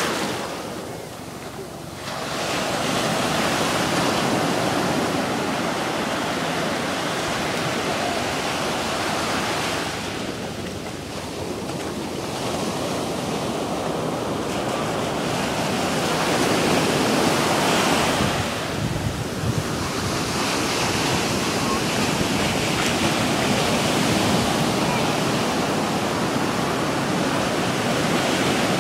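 Ocean surf breaking and washing up a sandy shore in a continuous rush that swells and eases as each wave comes in.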